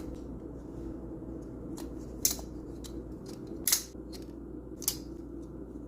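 3D-printed plastic balisong being flipped, its handles clicking sharply three times about a second apart over a steady low hum.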